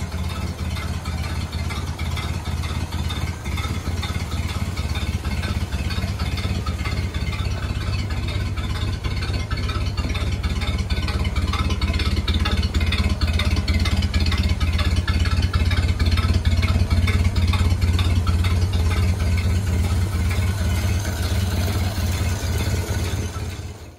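Ford Model A's four-cylinder flathead engine idling steadily, a low, even rumble of firing pulses.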